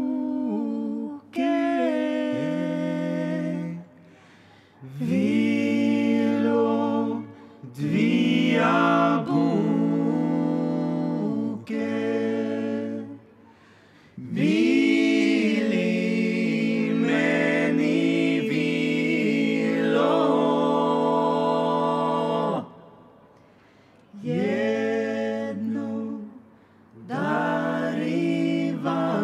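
Small group of men's and a woman's voices singing wordless held notes together in harmony, unaccompanied: a vocal warm-up. The phrases last several seconds each, with short breaths between them and a few notes sliding up or down into pitch.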